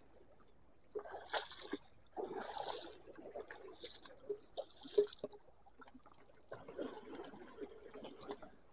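Shallow seawater washing and trickling among reef rocks in a few irregular splashes, with some small ticks.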